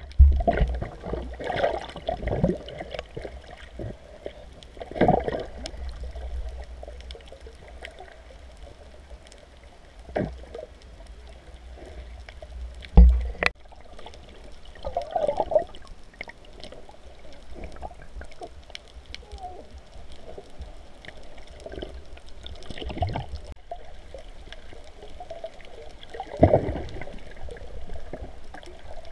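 Muffled underwater sound from a camera held below the surface: water gurgling and swishing, with irregular knocks, the loudest about 13 seconds in.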